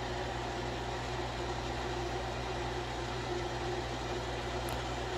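Steady hum and whir of a running appliance motor or fan, with a faint tick near the end.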